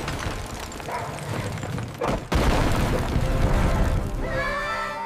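A horse whinnying over a loud, rough rushing noise that cuts out briefly about two seconds in; music comes in near the end.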